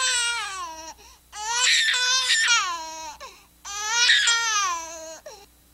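A solo high female voice singing unaccompanied: three long phrases, each gliding down in pitch, with short breaks between them.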